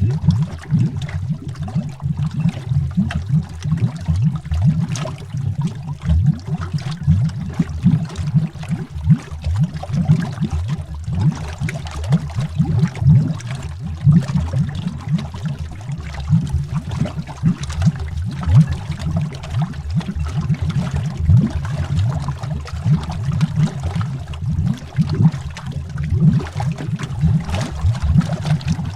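Bubbles rising through water, heard underwater: a dense, unbroken stream of low, quick bubbling blips with no pauses.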